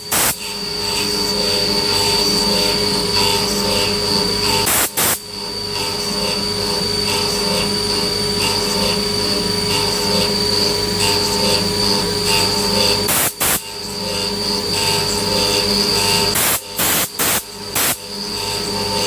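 CNC milling machine cutting, a steady whine with several held tones and a high squeal, broken by a few brief, sudden drops in level.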